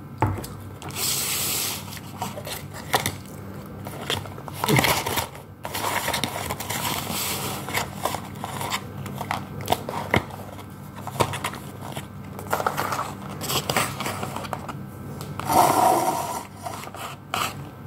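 Paper and cardboard fast-food packaging being handled and opened: rustling and crinkling with scattered clicks and scrapes, and louder rustles about a second in and near the end.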